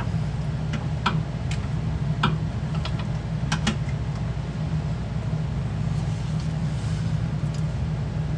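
Steady low hum of a running garage heater, with a few light, sharp clicks and taps of hand tools during the first half.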